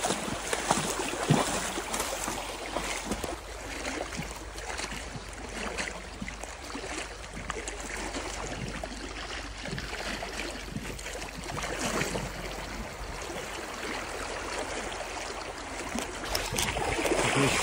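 A person walking through undergrowth, with irregular rustling and crunching steps over a steady rush of running water.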